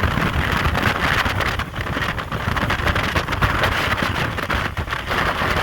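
Hurricane wind blowing hard in a strong gust, a dense rushing roar with heavy, irregular buffeting on the microphone.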